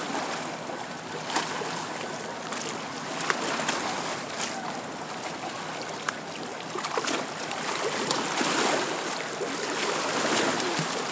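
Shallow lake water splashing and sloshing around legs wading through it, over a steady wash of small waves lapping at the shore. A few short sharp ticks come through.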